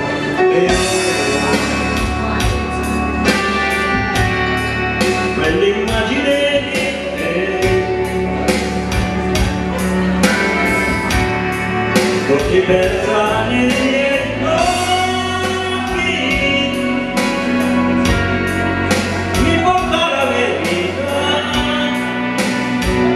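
A man singing an Italian song into a microphone over a karaoke backing track with a steady beat, played through PA speakers.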